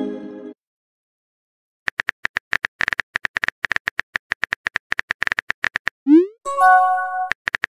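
Chat-app sound effects. A rapid run of keyboard tap clicks begins about two seconds in as a message is typed. Near the end there is a quick rising pop, then a short electronic chime of a few held notes, the app's message alert.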